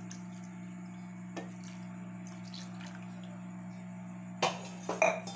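Milk being poured into a pan of cooked pumpkin halwa: a soft, steady liquid pour over a low hum. Near the end come two short, sharp, louder sounds.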